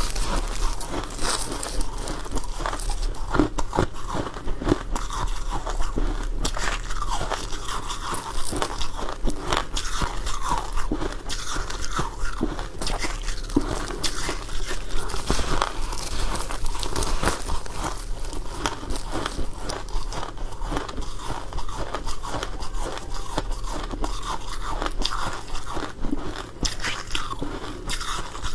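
Close-up crunching and chewing of powdery freezer frost, with continuous rapid irregular crackles as the frost is bitten and chewed.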